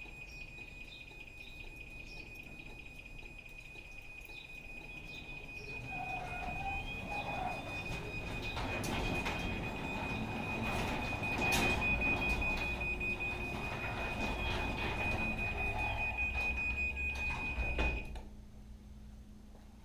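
Chamberlain LW9000WF belt-drive garage door opener closing the door on a remote command from the MyQ app: a rapid high-pitched warning beep sounds, and about six seconds in the opener starts and the door runs down with a rumble and rattle of rollers while the beeping goes on. The door seats and everything stops about eighteen seconds in.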